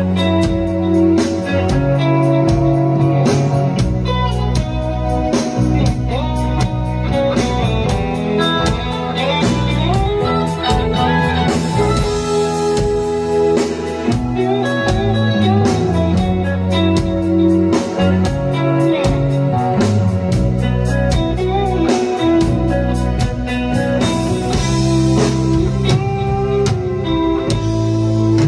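Live rock band playing: electric guitar over bass guitar and a steady drum beat with cymbals.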